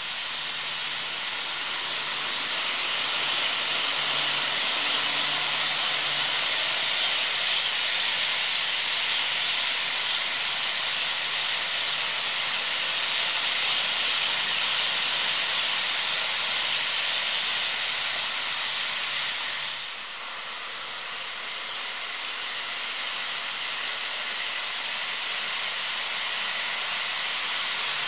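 HO scale model freight train rolling along track laid on carpet, its wheels and motors making a steady hiss that dips briefly about two-thirds of the way through.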